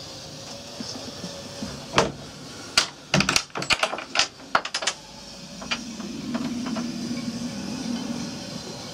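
A wooden cabin door's metal latch being worked and the door pulled open: a quick cluster of sharp clicks and knocks over about three seconds, followed by a low drone lasting a few seconds near the end.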